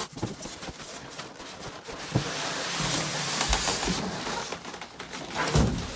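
Cardboard boxes scraping and rubbing as an inner box is pulled up out of a larger shipping carton, with a few knocks of cardboard against cardboard.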